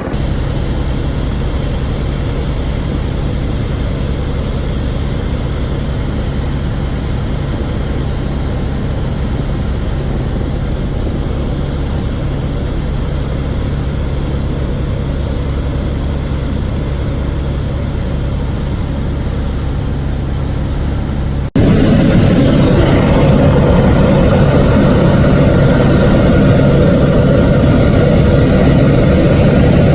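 Helicopter engine and rotor running in a steady drone. About two-thirds of the way through it cuts abruptly to a louder stretch.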